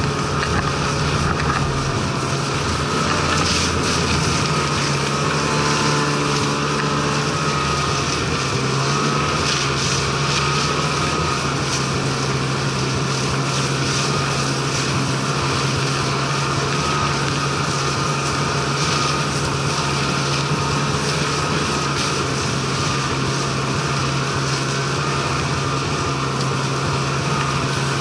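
Snowmobile engine running steadily under way, heard from on board the machine.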